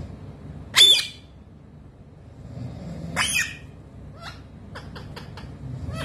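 Rose-ringed parakeet giving a loud, sharp squawk about a second in and a second squawk about three seconds in, then a quick run of short high chirps near the end.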